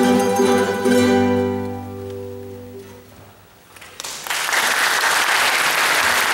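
Guitar and mandolin ensemble's final chord ringing and dying away over about three seconds. Audience applause starts about four seconds in.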